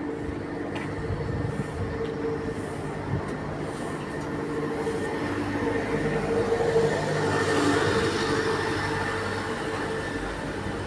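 A city bus drives past close by, its engine and tyre noise swelling about six seconds in and then fading, over a steady hum of traffic.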